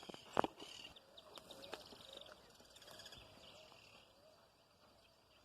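Guira cuckoos (pirinchos) calling faintly in a run of short repeated notes that fade out after about four seconds, with a single sharp knock about half a second in.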